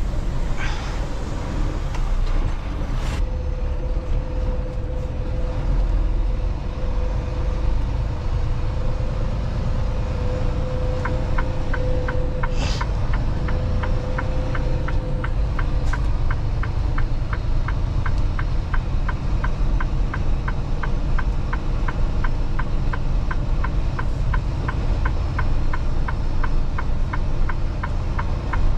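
Inside a semi-truck's cab: the engine and road noise rumble steadily, with a steady hum for a while in the first half. About eleven seconds in, an indicator relay starts clicking about twice a second and keeps on.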